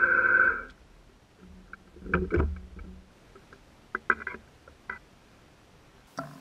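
Milling machine spindle running with a steady whine that cuts off under a second in. Then scattered metallic clinks and knocks of tooling being handled at the mill, with one heavier knock about two seconds in.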